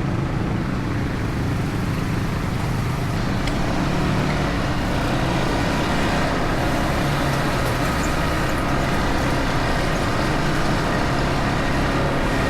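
A motor vehicle's engine running steadily, with a constant low drone under wind and travel noise.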